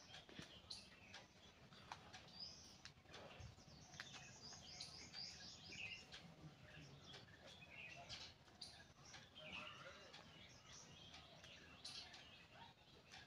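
Faint chirping of small birds, with a few soft crinkles of a paper banknote being folded by hand.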